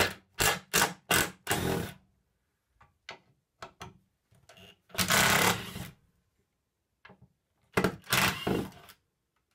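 Cordless drill/driver running in short bursts, backing out the screws that hold the tabletop to the base: a quick run of four or five bursts at the start, a longer run of about a second in the middle and two more near the end, with faint clicks in between.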